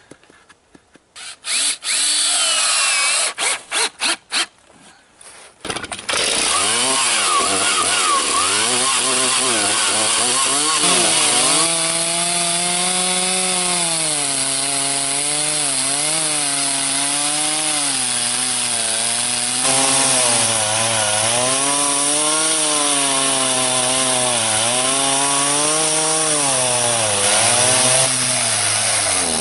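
Stihl chainsaw in a small chainsaw mill, ripping lengthwise down an upright black cherry log. There are short, broken bursts for the first few seconds, then from about six seconds in a steady cut under load, the engine pitch wavering up and down as it bogs and recovers in the wood.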